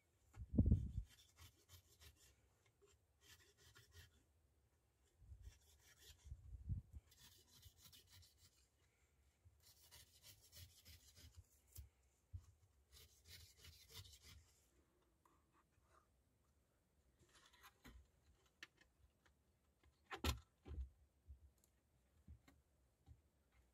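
Faint rubbing and scraping of hands and a knife working over a carpet-covered plywood panel and its edge trim, in several short stretches, with a few soft knocks of the board.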